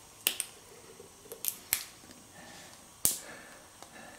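About six sharp metallic clicks and snaps from snap-ring pliers working a snap ring into the bore of a Nissin rear brake master cylinder. The loudest click comes about three seconds in.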